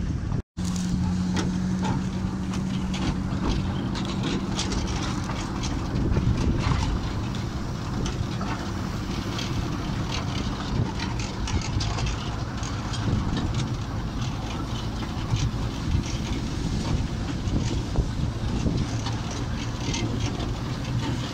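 Wind buffeting the microphone in a steady rush with gusty flutters, cut by a brief dropout about half a second in. A steady low hum sits under it for the first few seconds after the dropout.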